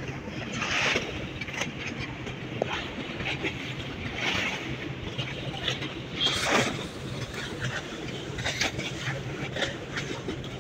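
Steady low hum of a 2GO ferry's engines as it docks, with a rushing noise that swells and fades every few seconds, loudest about six seconds in.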